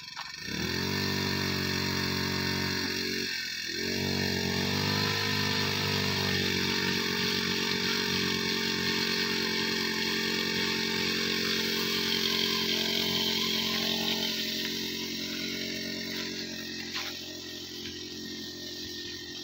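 Power sprayer's pump motor starting up about half a second in, its pitch rising quickly, dipping and picking up again around three to five seconds in, then running steadily to drive the pesticide spray.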